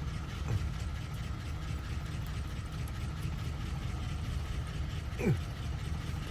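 Steady low mechanical hum, with a short falling squeak about five seconds in.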